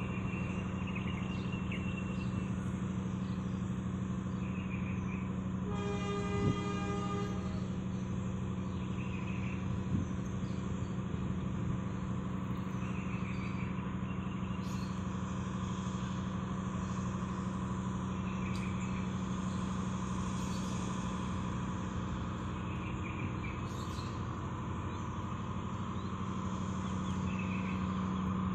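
Passenger train coaches rolling past as the train departs the station: a steady rumble of wheels on rail with a constant low hum. A train horn sounds once, about six seconds in, for about a second and a half.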